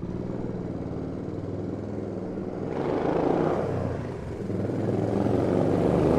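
Motorcycle engine running steadily, swelling briefly about three seconds in, then growing louder toward the end.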